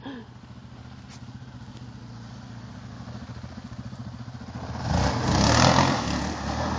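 Yamaha Raptor sport quad's single-cylinder engine running as it approaches, slowly growing louder. About five seconds in it revs hard as the quad slides round in a tight turn, tyres spinning and throwing grit with a loud rush.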